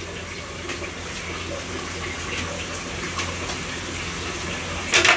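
Meat cooking in a steel pot on a gas burner, a steady hiss with small pops. Near the end, cauliflower florets are tipped in from a plate with a short loud clatter.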